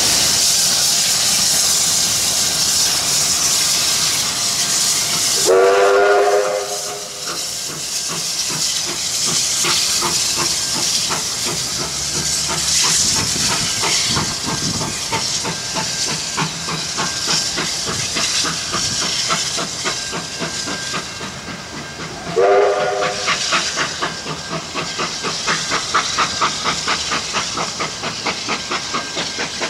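Steam locomotive R707, a Victorian Railways R class 4-6-4, hissing loudly with steam at first. Then it gives a short blast on its chime whistle, several notes sounding together, and runs with steady exhaust beats and hissing steam from its cylinders. A second, shorter whistle blast comes about three quarters of the way through.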